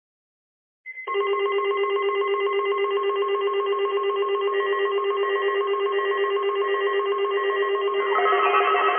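A steady electronic tone with a rapid warble, made of several held pitches, starting about a second in. Near the end more tones join it.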